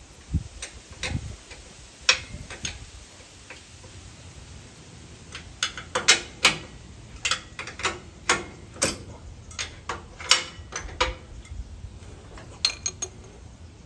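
Sharp metallic clicks and taps at irregular intervals, bunched closer together from about six seconds in, as tools and metal parts are handled under a lathe's tailstock end.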